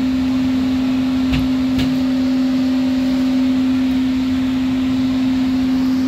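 Furnace air handler's blower running in air-conditioning mode, giving a loud, steady, single-pitched hum: the abnormal weird sound the unit has made since a power outage, its cause not yet found.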